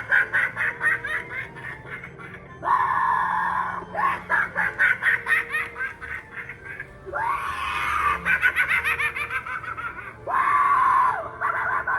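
Spirit Halloween Poor George animatronic playing its recorded voice track: a held yell followed by a run of quick laughing, repeating about three times.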